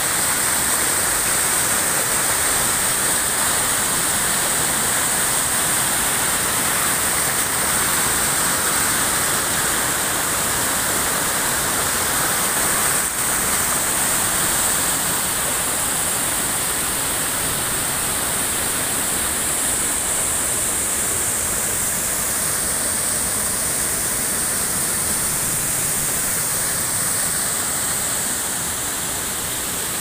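Steady rush of falling water from a waterfall and a stream pouring over a low concrete weir.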